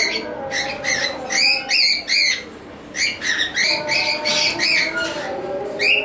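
Cockatiels calling in an aviary: a string of short, rising-and-falling chirps in quick succession, with a brief lull around the middle.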